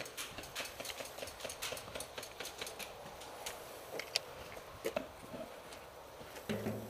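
A run of sharp, irregular clicks and snaps, several a second for the first few seconds, then a few louder single cracks, with a short low sound near the end.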